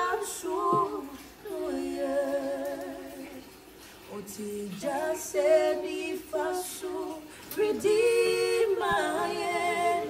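A woman's voice singing a slow worship song, holding long notes with a wavering pitch.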